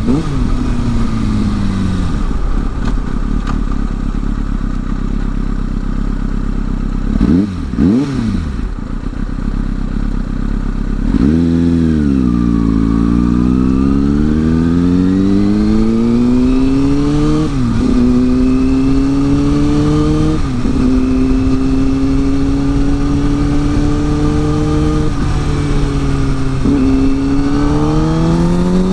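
Motorcycle engine, heard from the rider's seat, easing off and slowing, then accelerating away with a steadily rising pitch broken by three upshifts, each a sudden drop in pitch before it climbs again. Wind rush on the microphone runs under the engine.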